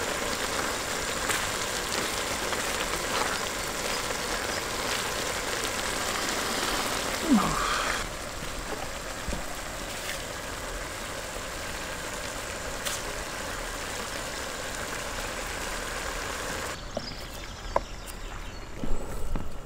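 Chopped tomatoes sizzling in a wide wok over a propane gas burner: a steady hiss that turns softer about eight seconds in. Near the end the hiss stops and there are a few sharp knife taps on a wooden chopping board.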